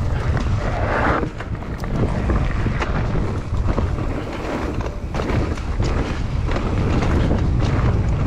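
Wind rumbling on the microphone of a camera riding on a mountain bike as it runs fast down a rocky trail. Frequent knocks and rattles come from the tyres and frame over the rocks.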